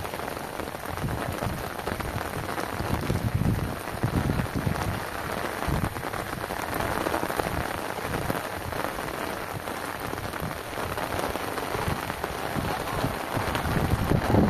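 Heavy rain falling on muddy, rocky ground and puddles, a steady hiss with uneven low rumbles underneath.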